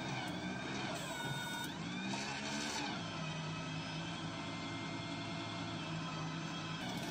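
Mini electric loader running: the whine of its electric drive and hydraulic motors dips and rises in pitch twice in the first three seconds, then holds steady over a low hum as it pushes into sand and lifts the bucket.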